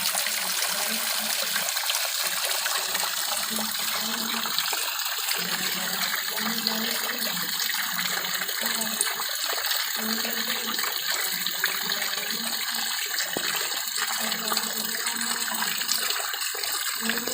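Clear water flowing and splashing steadily, with a low gurgle that comes and goes.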